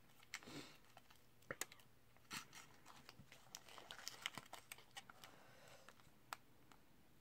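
Faint, scattered crinkles and clicks of a plastic sauce packet and a paper burger wrapper being handled as spread is squeezed onto a burger.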